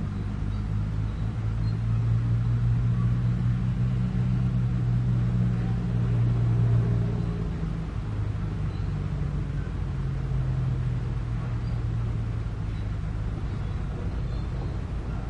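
Komatsu PC200 hydraulic excavator's diesel engine running steadily as the machine travels on its steel tracks. The engine note swells over the first few seconds and eases down a little about halfway through.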